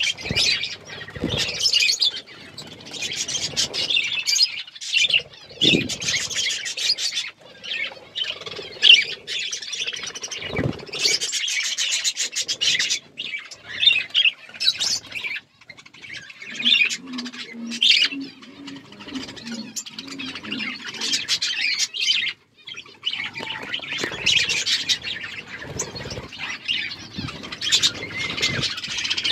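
Pet budgerigars chirping and warbling in continuous chatter, mixed with sharp clicks. A few low thumps stand out, and there is a run of low, even pulses near the middle.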